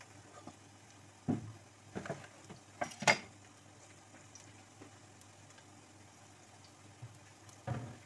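Onion faintly frying in a pan, with a few clattering knocks of kitchenware, the loudest about three seconds in and another near the end.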